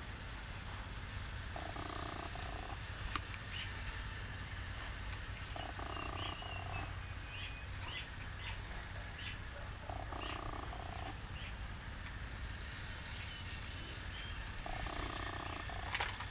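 Steady low rumble with small birds chirping faintly. A short, hollow call of about a second repeats roughly every four seconds, and there are a couple of light clicks.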